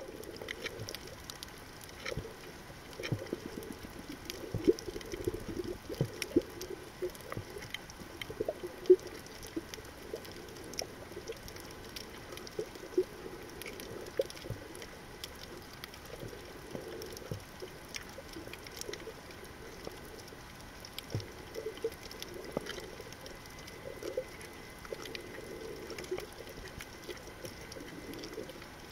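Underwater sound of a coral reef, picked up by the camera's mic beneath the surface: a muffled, wavering rush of water with irregular sharp clicks and crackles scattered throughout.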